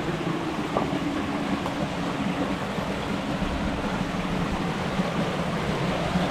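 Running water of a small rocky burn, a steady rushing.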